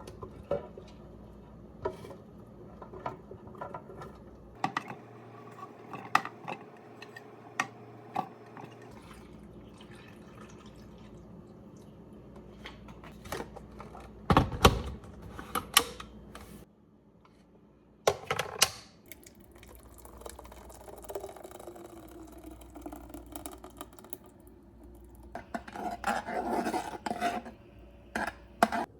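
Dishes and cutlery clinking and knocking, scattered taps throughout, with a few loud clatters around the middle and a busier stretch of clattering near the end.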